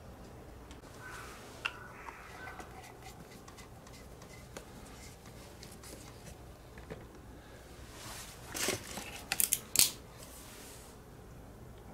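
Faint handling noise, then a quick cluster of sharp plastic clicks and knocks about two thirds of the way through, the last the loudest, as a black plastic hose coupling is screwed onto the water inlet of a Kärcher pressure washer.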